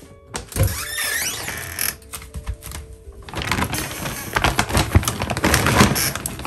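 Handling in a kitchen cupboard: crinkly rustling of plastic or paper with quick light clicks and the clatter of crockery being moved.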